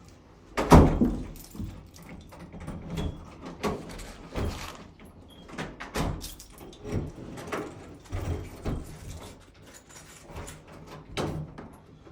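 A door shutting with a loud bang just under a second in, followed by a run of softer, evenly spaced thuds and knocks, about one or two a second.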